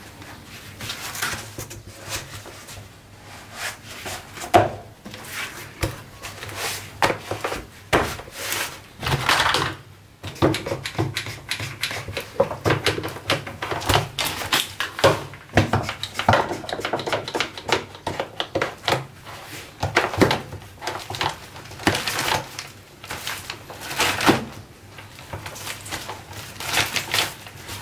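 Irregular knocks, thuds and rubbing from working a hinged wooden foam press used to form a heated Kydex holster sheet: the softened sheet is handled on the foam, and the wooden lid is shut and pressed down.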